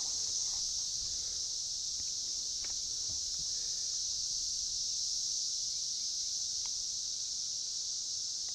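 Steady insect chorus, a high even buzz that holds without a break.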